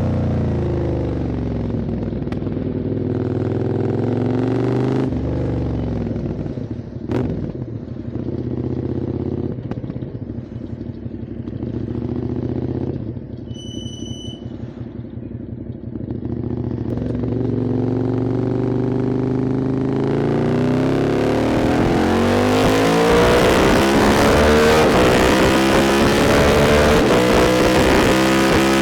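QJ Motors SVT650X's V-twin engine through an Arrow Racetech exhaust on custom headers, heard from the rider's position. It cruises, eases off to a lower, quieter run around the middle, where a short high beep sounds, then accelerates hard with rising pitch and building wind noise through the last third.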